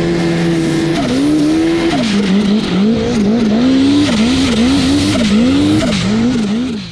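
Snowmobile engine at high revs, first held steady, then the throttle worked up and down so the pitch repeatedly drops and climbs, about one to two times a second, before fading out at the end.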